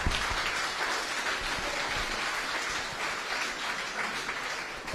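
Audience applauding: many people clapping steadily together, thinning slightly near the end.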